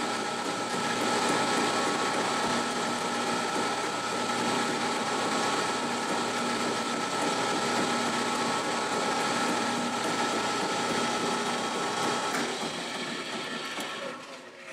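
Pullmax reciprocating sheet-metal machine running steadily as its tool works an aluminium sheet being fed through it, a continuous mechanical clatter. It dies away near the end.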